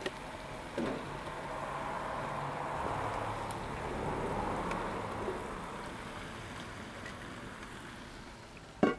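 Oxtail pieces sizzling as they are laid into a hot roasting pan of reduced red wine, the sizzle swelling in the middle and fading toward the end. A few metal clicks from the tongs, with one sharp clack near the end.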